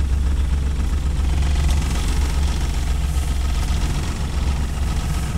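Car running on the road, heard from inside the cabin: a steady low rumble of engine and road noise.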